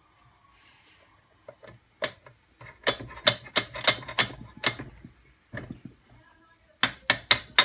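Sharp metal clicks and taps as the piston and wrist pin are worked free of a Vertemati 570 engine's connecting rod: a run of about eight from about two seconds in, then four more close together near the end.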